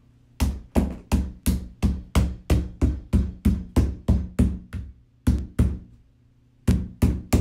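Rubber mallet tapping on a plastic cage panel, driving its interlocking pegs into their holes: a steady run of strikes at about three a second, then a short pause, two more, and a few more near the end.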